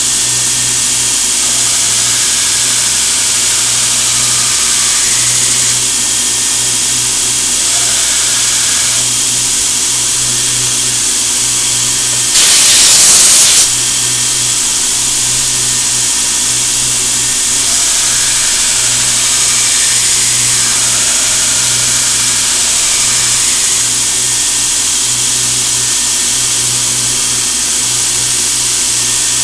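Belt grinder running steadily with a low hum, at times changing slightly as the CPM 15V steel blade meets the belt. About twelve seconds in, a loud hissing blast of about a second comes from the handheld air gun on the grinder.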